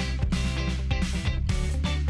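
Background music: a guitar-led track with a steady beat and bass.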